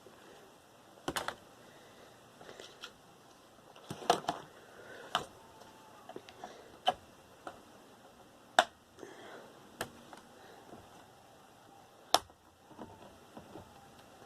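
Irregular sharp clicks and snaps from hand tools and plastic and metal parts as a desktop computer tower is taken apart, about eight loud ones spread unevenly with fainter ticks between.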